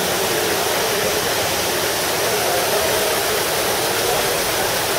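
Water of the Trevi Fountain cascading over its rockwork into the basin: a steady, even rushing splash.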